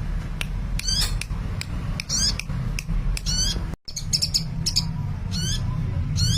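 A sunbird (the bird Indonesian keepers call 'kolibri') singing in a lively run of high, quick chirps and sweeping twitters, over a steady low hum, with a brief gap a little past the middle.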